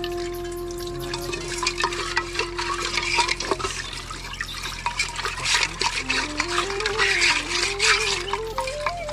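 Water splashing and dripping in many irregular clicks and spatters, over background music: a held note for the first few seconds, then a slow melody moving in steps from about six seconds in.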